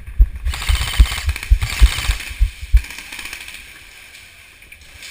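Rhythmic low thuds, about three a second, that stop about three seconds in. A rushing, rustling hiss overlaps them from about half a second to two seconds in.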